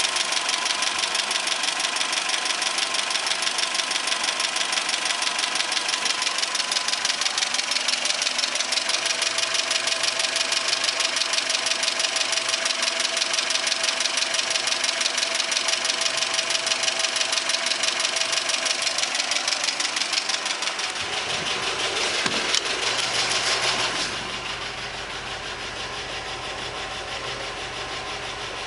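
ZMZ-402 inline-four petrol engine running with a regular, rapid knock, which the owner places around the first cylinder and calls strange. Near the end the sound changes, swells briefly and then settles to a quieter, steadier run.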